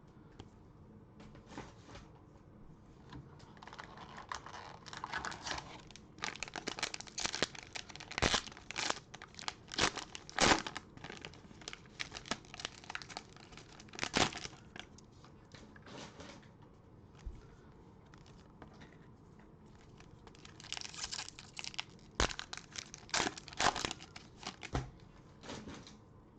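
Cellophane trading-card pack wrappers being torn open and crinkled by hand, in irregular handling bursts with quieter gaps, as packs of cards are opened.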